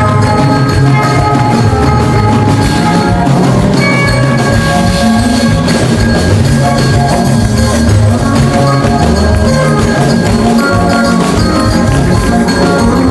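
Loud background music: a run of short pitched notes over a beat.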